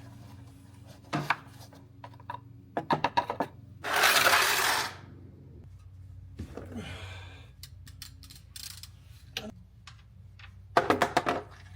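Metal tools clinking and clattering in short rapid runs of clicks, with a brief loud rushing noise about four seconds in.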